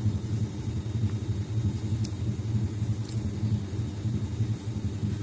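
A steady low mechanical rumble, like an engine or motor running nearby, with a few faint ticks over it.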